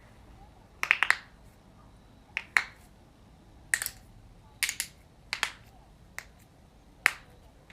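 Joints cracking: sharp pops in about seven separate bursts, some single and some a quick run of two to four pops.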